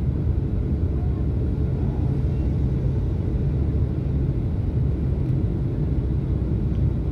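Cabin noise inside a Boeing 757-200 as it lands: a steady low rumble from the engines and the air and runway beneath the plane.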